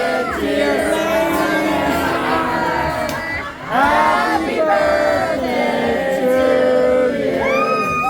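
A group of voices singing a birthday song together, with long held notes and a brief dip about three and a half seconds in.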